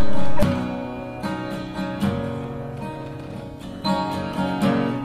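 Background music: an acoustic guitar picking and strumming notes and chords.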